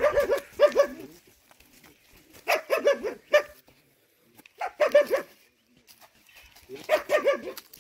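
A dog barking in four short runs of quick barks, each run about a second long and a second or so apart.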